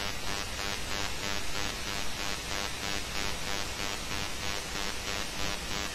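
Steady static-like hiss of the recording's background noise, with no distinct clicks or clinks standing out.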